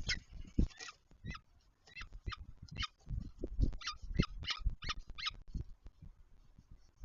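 Peregrine falcon giving a series of about a dozen short, harsh calls, each falling in pitch, with low thumps underneath.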